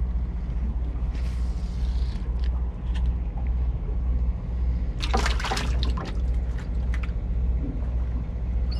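A low, steady, pulsing motor drone runs throughout. About five seconds in, water splashes once for about a second.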